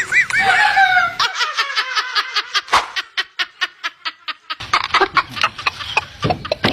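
A person laughing hard: a few voiced whoops, then a long run of rapid breathy pulses, about six a second, that fade and break up near the end.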